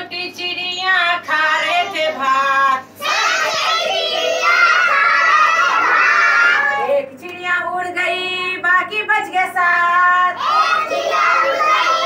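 Young children singing a Hindi counting rhyme about little birds in chorus, a woman's voice leading the lines and the group answering.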